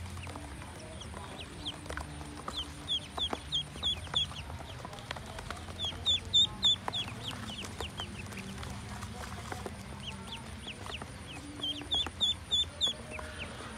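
A group of ducklings peeping: quick runs of short, high, falling peeps, loudest about six seconds in and again near the end.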